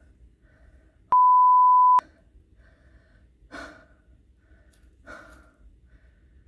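A loud, steady electronic beep of a single pitch, just under a second long, about a second in. Around it, a woman breathes heavily with her mouth open, with two gasping breaths in the second half.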